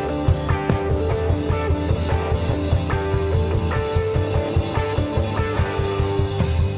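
Live rock-style worship band playing an instrumental passage: the drum kit, with Orion cymbals, keeps a steady driving beat under held bass and electric guitar chords.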